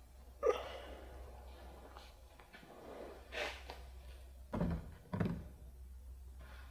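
A man settling at a folding table: a sharp knock about half a second in, another short knock a few seconds later, then two dull thumps as hands come down on the tabletop, over a steady low hum.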